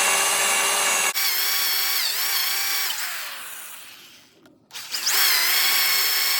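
A half-inch DeWalt drill on its slowest speed turns a 1 3/4 inch Forstner bit into log wood, giving a steady motor whine. The pitch dips under load about two seconds in. The drill winds down and stops for a moment just before five seconds, then starts again with a rising whine and runs on.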